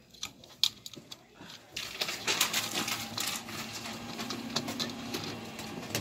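Small plastic clicks and scrapes from hands working at a smoke-detector base and its wiring on the ceiling, turning to denser rustling and crackling about two seconds in.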